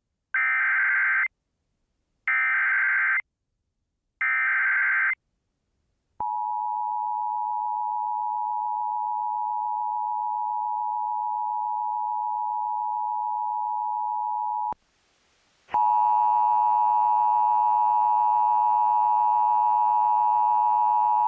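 Emergency Alert System header from a Sage EAS ENDEC: three short bursts of SAME data tones, each about a second long with a second's gap between them, then the two-tone EAS attention signal held steady for about eight and a half seconds. About a second after it stops, a louder, buzzier steady tone with many overtones starts and runs on.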